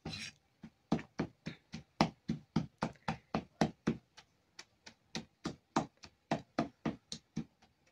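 A large kitchen knife chopping roasted tomatoes, tomatillos and chiles on a maguey leaf, the blade knocking down onto the table beneath in a steady run of about three to four strokes a second.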